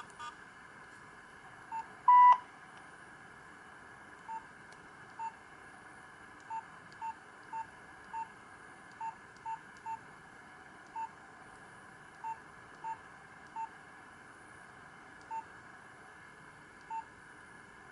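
Nokia 2865i keypad beeps as keys are pressed: short single-pitch beeps at irregular intervals, about one a second, with one much louder, longer beep about two seconds in. A steady hiss lies underneath.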